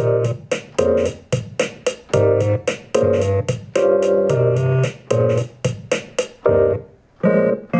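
Electronic instrumental beat made in FL Studio: electric piano chords over sharp drum-machine hits about three times a second.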